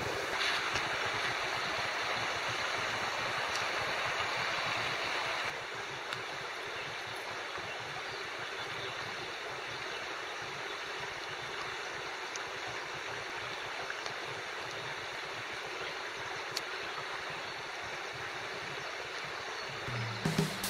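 Steady rushing of a small woodland river, an even wash of water noise that drops a little in level about five seconds in.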